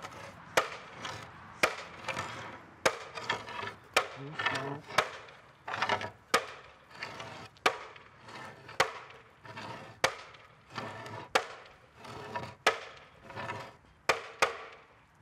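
Sledgehammer blows on the rim of a wooden cartwheel: about a dozen heavy strikes at an even pace, a little over a second apart, as the wheel is worked round.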